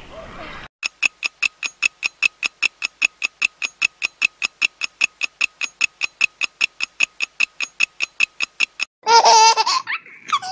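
A fast, even ticking, about five ticks a second, runs for about eight seconds and then stops. Near the end a child's high voice laughs loudly.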